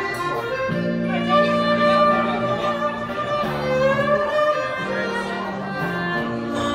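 Violin playing a slow melody of long held notes with vibrato, over low sustained accompanying chords.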